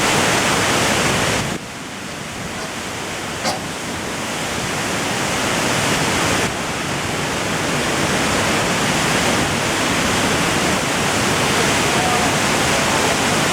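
Waterfall rushing with a dense, steady noise of falling water. The level drops suddenly about a second and a half in and jumps back up about six and a half seconds in. A brief sharp high sound comes about three and a half seconds in.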